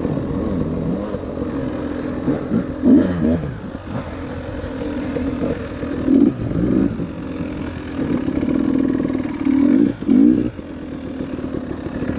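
Off-road enduro motorcycle engine running on a trail, its pitch rising and falling repeatedly as the throttle is opened and closed.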